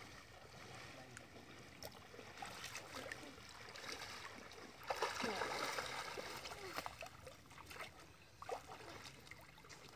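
Water splashing and sloshing as children wade and swim in a shallow muddy canal, with a louder rushing splash about five seconds in that fades over a second or so. Faint children's voices now and then.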